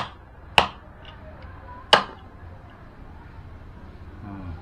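Large knife chopping the tail tips off freshwater snail shells on a wooden chopping block: three sharp chops, at the start, about half a second in and about two seconds in.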